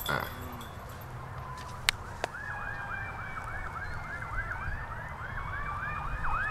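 Emergency-vehicle siren sweeping quickly up and down about three times a second in a yelp, growing stronger about two seconds in, with a second, slower siren wail rising and falling above it. A sharp click sounds just before two seconds in.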